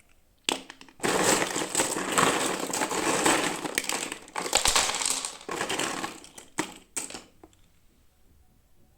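Toy packaging being opened by hand: a click, then dense crinkling and crackling for about six seconds, pausing briefly twice before it stops.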